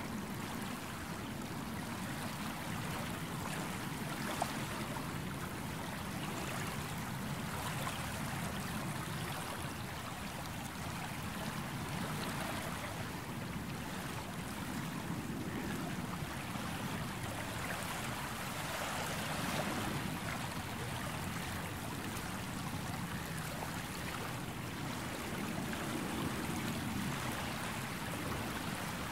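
Gentle sea waves washing onto the shore: a steady wash that swells and eases every few seconds, with one brief click about four seconds in.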